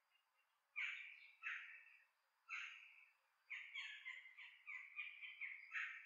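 A bird giving harsh, scratchy calls: three spaced calls, then a quick run of calls in the second half.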